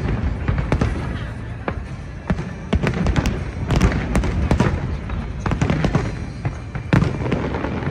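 Aerial fireworks shells bursting in a dense, irregular barrage: many overlapping sharp bangs and deeper booms, several a second.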